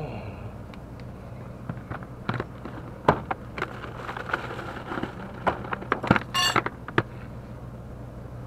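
Plastic cooler box being handled: a string of knocks and clicks from its lid and contents, with a short quick rattle about six seconds in, as a freshly caught small mackerel is put away.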